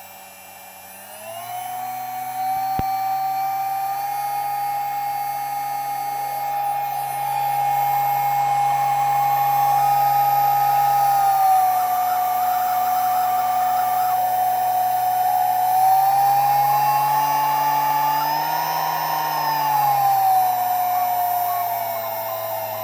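New China-made Rattm Motor spindle running with a loud, steady high-pitched squeal over its motor hum. The squeal rises in pitch about a second in, dips slightly around the middle, rises again and falls back near the end, with a single sharp click about three seconds in.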